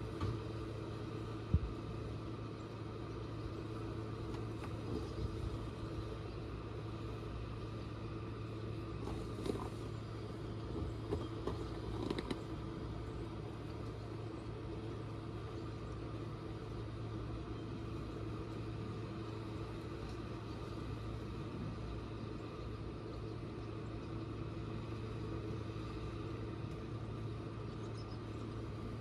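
Boat motor running steadily at low speed, a constant low hum. A single sharp knock sounds about a second and a half in, and a few faint clatters follow later.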